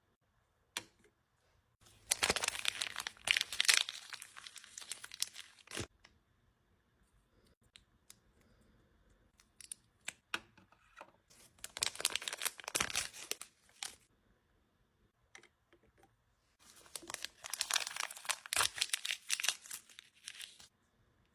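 Plastic packaging being crinkled and torn open by hand, in three bouts of dense crackling with short pauses between them.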